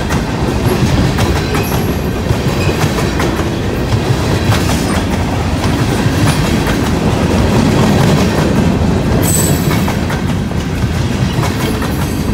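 Empty covered hopper cars of a grain train rolling past close by: a steady rumble of steel wheels on rail with continuous clicking and clatter from the wheels. A short high squeak comes about nine seconds in.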